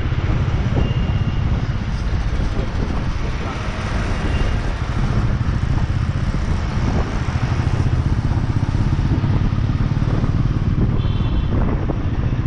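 Steady wind rumble on the microphone of a camera riding on a moving motorbike, over road and traffic noise. A short vehicle horn toot sounds near the end.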